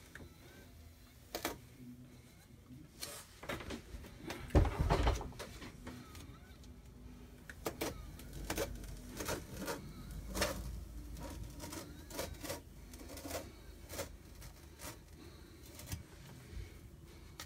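A Chalk Couture adhesive silk-screen transfer being peeled off a window pane and handled, making irregular clicks and taps against the glass and frame, with a heavier bump about four and a half seconds in.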